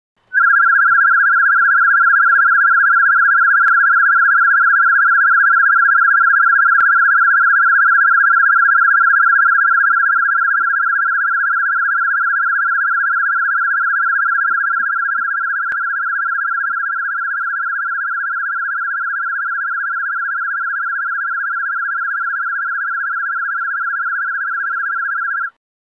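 1.5 kHz warble tone from an Amplivox Model 270+ audiometer, played as a free-field calibration signal: one continuous, slightly wavering tone. It steps down in level about ten seconds in and again a few seconds later as the calibration output is adjusted, then cuts off near the end.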